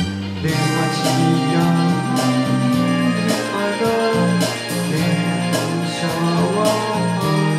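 Karaoke backing track playing an instrumental passage, with held notes over a steady beat.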